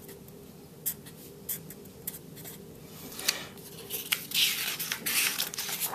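Black felt-tip marker scratching across paper in short strokes, then paper rustling louder from about four seconds in as the sheet is handled.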